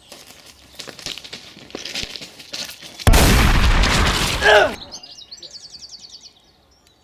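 A single loud revolver gunshot about three seconds in, its blast trailing off in noise for about a second and a half. Birds chirp afterwards.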